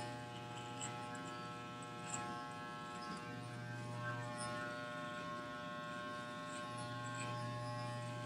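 Corded electric hair clippers on their shortest setting buzzing steadily as they trim the edges of the hair around the ear and sideburn, with a few faint clicks.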